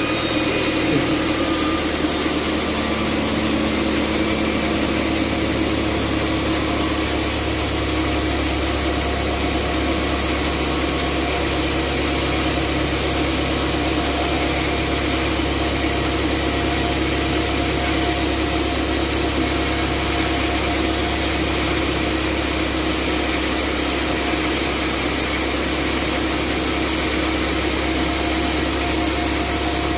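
Sawmill band saw running steadily: a constant machine hum with a few steady tones, unchanging throughout.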